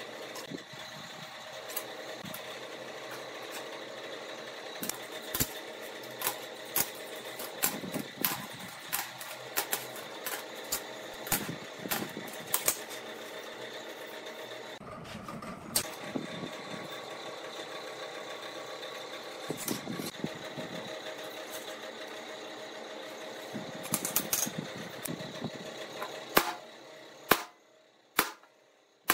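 Steady hum of workshop machinery with scattered sharp metallic clinks as flat steel bars are handled on a concrete floor. Near the end the hum drops away and a hammer strikes a center punch on a steel bar, a few sharp blows about a second apart.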